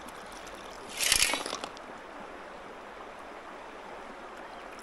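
Creek water running steadily, with a brief loud burst of noise about a second in.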